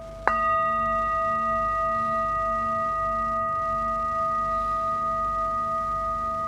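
A brass singing bowl is struck once, about a third of a second in, and then rings on with several steady overlapping tones. Its lowest tone slowly pulses and wavers. Underneath, a steady tone that was already ringing continues.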